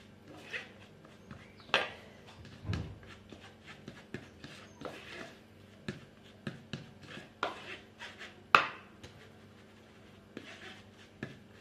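Metal spoon scraping and tapping inside a plastic sieve as cocoa powder is pushed through it, an irregular run of short scrapes and knocks, with a sharp knock about two seconds in and a louder one about eight and a half seconds in.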